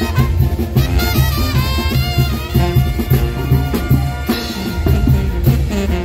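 Mexican brass band (banda) playing dance music loudly, brass melody over a steady drum beat.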